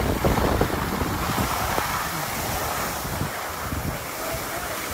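Wind noise on the microphone and the hiss of skis sliding over snow during a downhill run.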